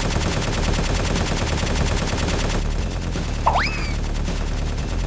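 Machine-gun fire sound effect: a dense burst of rapid shots at a steady fast rate, thinning out about two and a half seconds in. A brief rising squeal cuts through about a second later.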